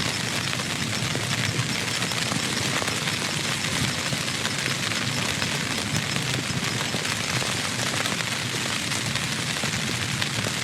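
Steady heavy rain: a dense, even hiss of many drop impacts at a constant level.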